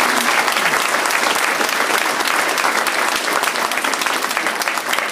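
Audience applauding, a dense, steady patter of many hands clapping that eases slightly toward the end.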